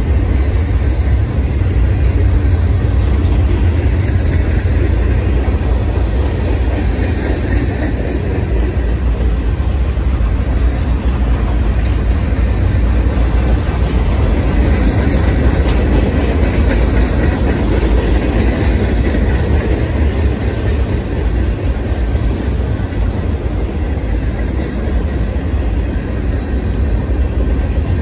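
Freight cars of a Union Pacific manifest train rolling past: a steady, loud rumble of steel wheels on the rails with no breaks.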